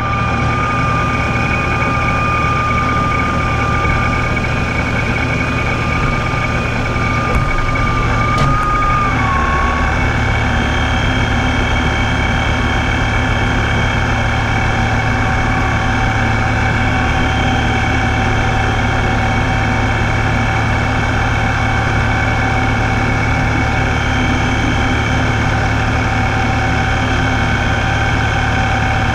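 Supercharged engine idling, with a steady high-pitched whine over the low engine rumble. About nine seconds in, the strongest whine tone dips slightly in pitch and fades, while other whine tones carry on. The owner suspects a bad Ripp supercharger bearing; the whine comes only with the vehicle in gear.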